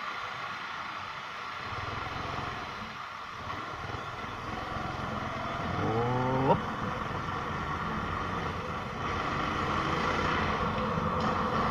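Motorcycle riding at low speed, its engine running under a steady wash of road and wind noise. About six seconds in, an engine revs up briefly in a rising pitch and cuts off sharply.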